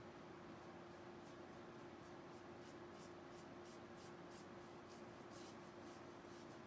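Faint, soft swishes of a paintbrush stroking paint onto a canvas edge, about two or three strokes a second, starting about a second in, over a steady faint hum.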